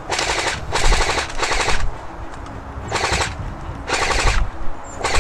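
Automatic airsoft gun firing in short, rapid bursts of fire. Several bursts come in a row, each about half a second long, with brief pauses between them.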